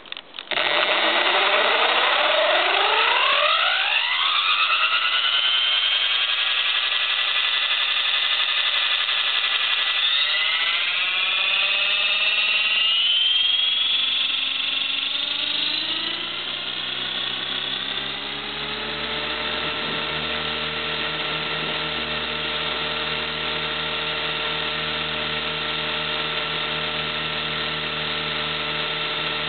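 Radio-controlled model helicopter's motor and rotor spinning up: a whine that rises steeply in pitch over the first few seconds and holds, climbs again about ten seconds in, then drops back a few seconds later and settles into a steady lower drone.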